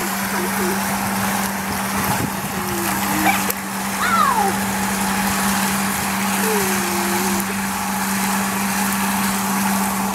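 Steady rush of water from an above-ground pool's return jet, with a constant low hum under it. Two faint, short falling calls come about four and seven seconds in.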